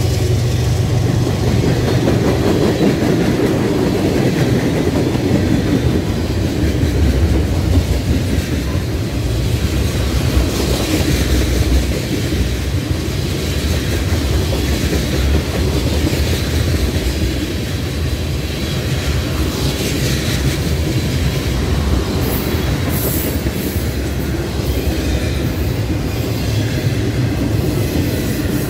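Freight train cars rolling past at close range: a steady low rumble with the clickety-clack of steel wheels over rail joints as covered hoppers, tank cars and double-stack container well cars go by.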